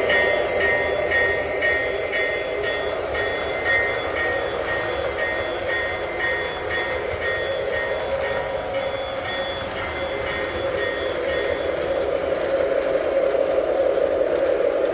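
Lionel Dash 8 O-scale diesel locomotive's onboard sound system playing a steady diesel engine rumble, with the locomotive bell ringing about twice a second until about three-quarters of the way through. The engine sound then grows a little louder.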